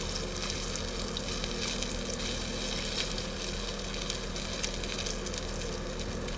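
Eggs and bacon frying in a pan on a small propane camp stove, a steady sizzle with small scattered pops, over a faint low steady hum.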